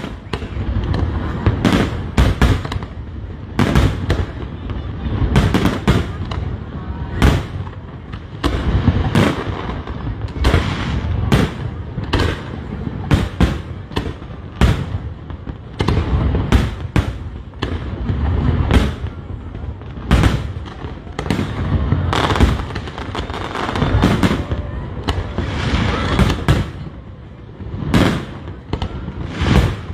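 Aerial fireworks going off in rapid succession, with many sharp bangs and deep booms overlapping continuously.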